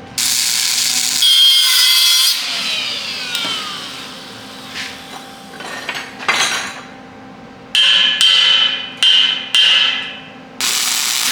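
MIG welder laying tack welds on a steel frame. The arc crackles in abrupt on-off bursts: about two seconds at the start, then several short half-second tacks in the last few seconds.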